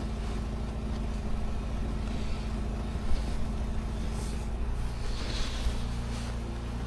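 Snowblower engine running steadily with an even low drone, a temperamental machine the owner has just got started.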